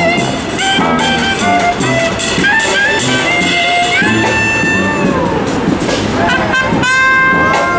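Background music with instruments playing a melody over a steady beat.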